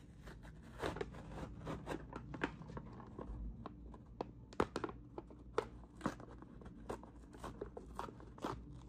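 Cardboard-backed plastic blister pack being torn open by hand: the paper backing rips and crackles in a run of irregular sharp crackles, loudest around the middle.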